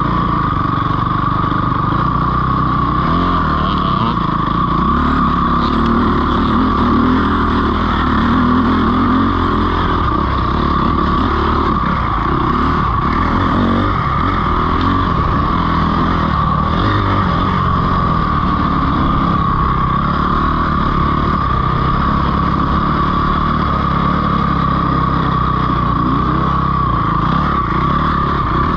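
Dirt bike engine running and revving as the bike is ridden along a trail, with a steady high whine over it.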